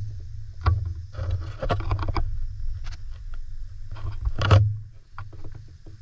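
Low, steady rumble of a car running, with scattered clicks, knocks and scraping noises over it; the loudest is a short rustling burst about four and a half seconds in.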